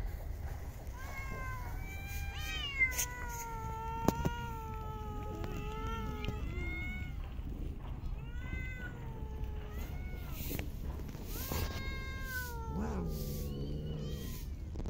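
Stray cats meowing over and over, calls overlapping at times, with one long drawn-out meow a few seconds in and a lower, longer call near the end. Two sharp clicks stand out about three and four seconds in.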